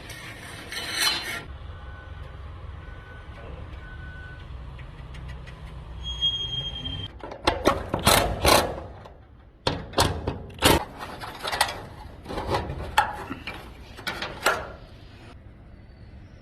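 Tools working on the metal hardware of an overhead door: a run of short, irregular scraping and knocking strokes in the second half, over a low steady hum.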